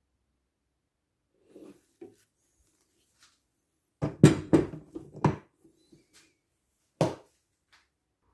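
A few knocks and clatters of hard objects being handled and set down: a quick run of five or six sharp knocks about halfway through, then a single knock a few seconds later.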